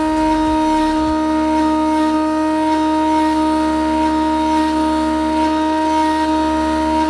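The spindle motor of an EcubMaker TOYDIY2's CNC tool head running with a steady, even whine while its engraving bit cuts into plywood.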